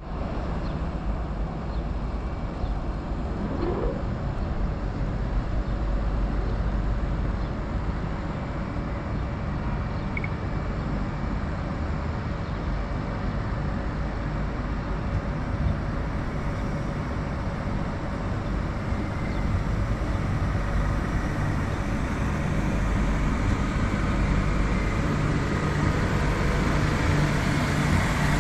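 Renfe Civia class 465 electric multiple unit approaching and pulling into the platform: a steady low rumble and hum that grows louder over the last several seconds as the train draws near. A brief rising whistle-like glide sounds about three seconds in.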